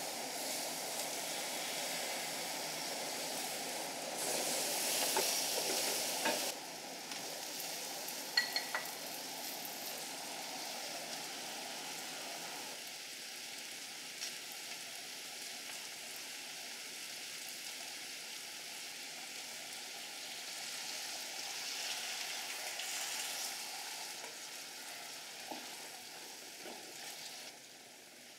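Pumpkin cubes sizzling in a hot clay pot over a gas flame, a steady hiss that grows louder for a couple of seconds near the start. A couple of light clinks come about eight seconds in.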